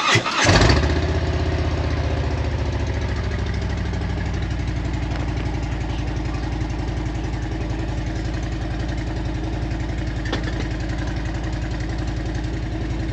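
Motorcycle engine starting and catching just under a second in, then idling steadily. A small click is heard about ten seconds in.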